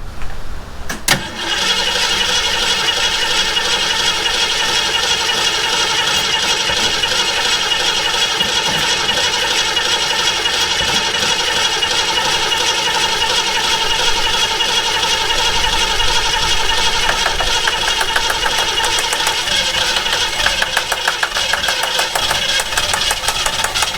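A 1967 Ford Mustang's engine is cranked by its starter motor, about a second in, and keeps turning over with a fast, even rhythm for over twenty seconds without starting. It is a no-start condition being traced to the fuel supply and carburetor.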